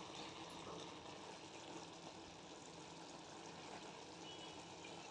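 Faint, steady hiss of ridge gourd pieces cooking in a pan on the stove, still frying a little before they are done.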